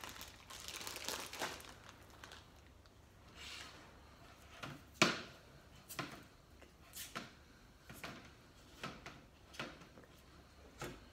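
Handling and loading a jerky gun with ground meat: soft rustling at first, then a series of short sharp clicks and knocks about once a second, the loudest about halfway through.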